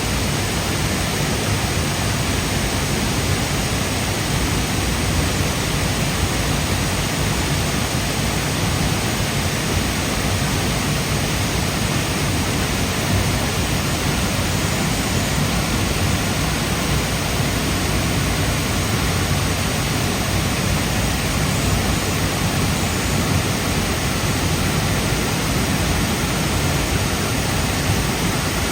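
Burney Falls, a 129-foot waterfall, pouring steadily: a constant, loud rush of falling water.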